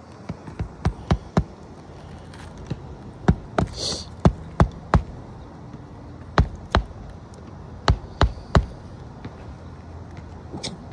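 Hammer driving roofing nails into a shingle: sharp strikes in short runs of two to five blows, with pauses between runs, and a brief scraping hiss about four seconds in.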